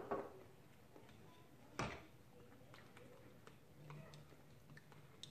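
Light clicks and taps of a fork against a plastic container on the counter, with one sharper knock a little under two seconds in.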